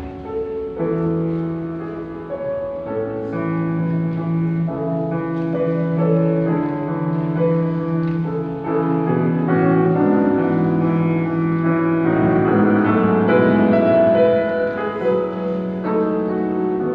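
Grand piano playing a lyrical song without words: held melody notes over sustained chords and bass notes, swelling louder in the second half.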